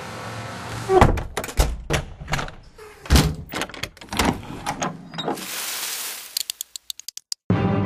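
A quick montage of sound effects: a string of sharp knocks and heavy thuds, some like doors or solid objects banging, then a short burst of hiss and a fast run of clicks that cuts off abruptly.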